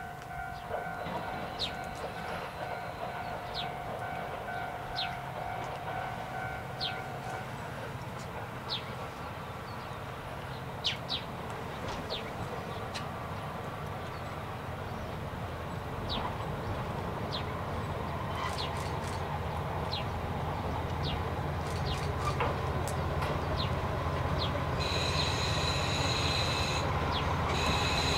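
KiHa 40 diesel railcar train approaching and drawing into a station, its engine rumble growing steadily louder. High brake squeal starts a few seconds before the end as it slows to stop.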